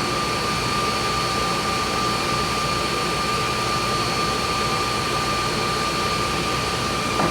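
Steady drone of running machinery with a constant high-pitched whine on top, unchanging throughout.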